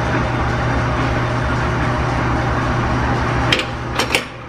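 Steady low hum and rumble of running shop machinery. Near the end come three sharp metallic clicks as steel tools are handled on a steel surface plate.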